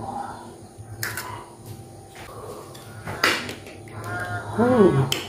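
A fork beating a raw goose egg into chopped vegetables in a ceramic bowl, clicking sharply against the bowl a few times. Near the end comes a drawn-out call that falls in pitch.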